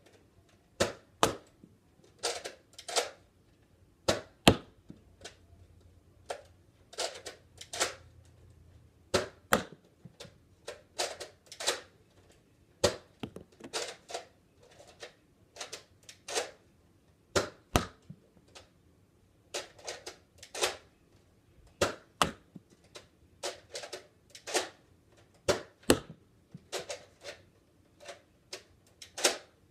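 Slide-primed, magazine-fed Nerf blaster being primed and fired again and again: sharp plastic clacks, many in pairs, with short gaps between them.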